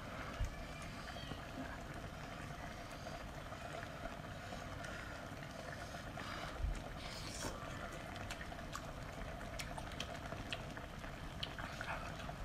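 Fingers working meat out of a sauce-covered conch shell: soft wet squelching with scattered small clicks over a steady background hiss.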